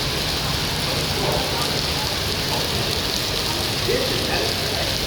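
Heavy rain pouring down, a dense, steady hiss of rain on surfaces.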